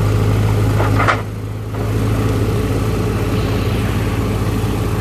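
Tractor engine running steadily while its hydraulic crane grapple sets a boulder in a shallow stream, with rushing water behind. About a second in there is a short sharp noise, and the engine sound dips briefly.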